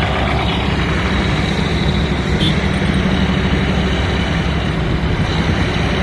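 Diesel engines of heavy road-paving machinery running steadily at work, a loud, even, low drone.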